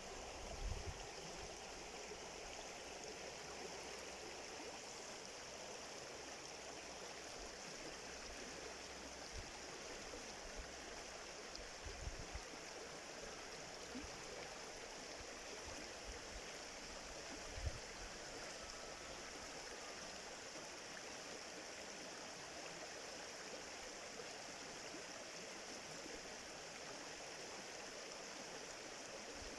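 Stream water flowing steadily, heard faintly, with three brief low thumps: about a second in, around twelve seconds and around eighteen seconds.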